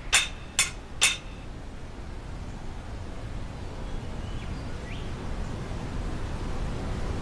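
Three sharp clinking hits about half a second apart, then a steady low rumble that slowly grows louder, with two faint short chirps in the middle.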